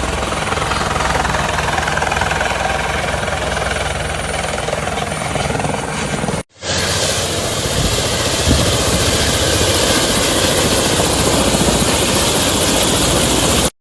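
Helicopter running close by, a loud steady mix of rotor and engine noise with a low hum beneath. It cuts out sharply for a moment about halfway through, then resumes.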